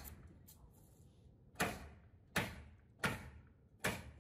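Four sharp knocks, evenly spaced about three-quarters of a second apart, of nails being driven into OSB roof sheathing.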